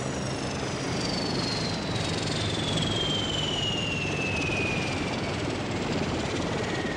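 Westland Wasp helicopter's turbine engine and rotor running, with a high whine that falls steadily in pitch.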